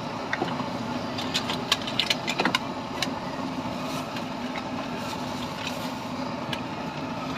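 Steady engine-like hum and street noise. From about one to two and a half seconds in comes a cluster of sharp clicks: the spoon knocking against the plastic bowl as fish paste for batagor is mixed.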